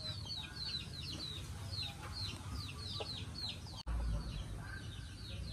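Birds chirping: many quick, high, falling peeps, several a second and overlapping, over a low rumble. A brief gap about four seconds in, after which the rumble is louder.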